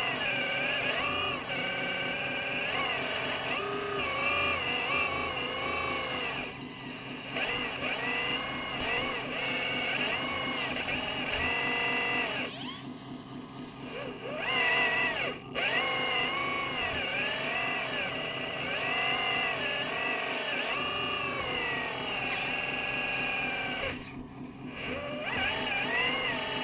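Small electric motors and hydraulic pump of RC construction machinery whining, the pitch dipping and rising over and over as the machines are worked, with a fast steady pulsing underneath. The sound eases off briefly three times.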